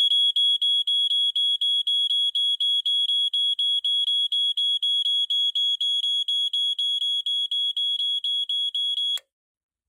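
Dicon 300 smoke alarm sounding on test: a loud, high-pitched beep repeating rapidly, about four times a second, stopping abruptly about nine seconds in.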